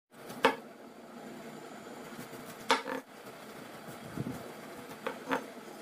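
Large kitchen knife cutting the skin off a whole pineapple on a wooden chopping board, the blade knocking sharply on the board about five times over a steady background hiss.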